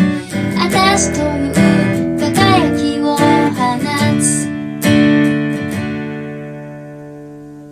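Acoustic guitar strumming the closing chords of a song; a final chord about five seconds in is left to ring and fades out.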